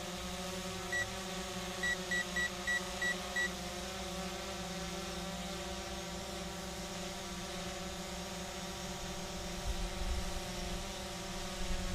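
Small Visuo quadcopter drone hovering, its motors and propellers giving a steady whine. About a second in comes a single short high electronic beep, then a run of six quick beeps. Near the end a low rumble of wind on the microphone rises.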